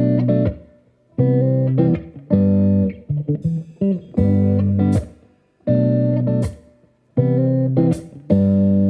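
Background music of plucked guitar chords, played in short stop-start phrases about a second long with brief gaps between them.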